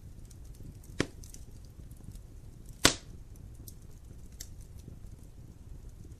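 Wood fire crackling in a fireplace: faint small crackles over a low rumble, with two sharp pops from the burning wood, one about a second in and a louder one near three seconds in.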